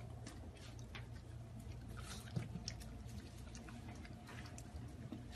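A pug eating a birthday cake: faint wet smacking, licking and chewing sounds as it digs into the frosting.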